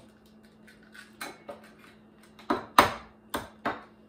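Eggs being tapped and cracked against the rim of a glass bowl: about six short, sharp knocks, the loudest a little before three seconds in, over a faint steady hum.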